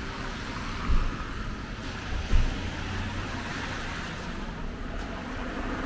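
Steady road-traffic noise from cars on the adjacent street, with two short low thumps about one and two and a half seconds in.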